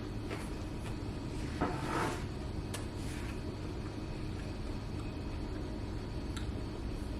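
A knock with a short scrape about a second and a half in, then a few light clicks, over a steady low hum.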